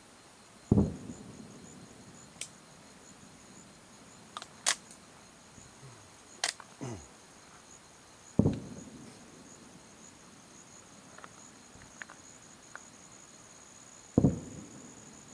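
Distant aerial firework shells bursting: three deep booms with long rolling tails, about a second in, about halfway through and near the end, with several smaller sharp cracks between them. A thin steady high tone runs underneath.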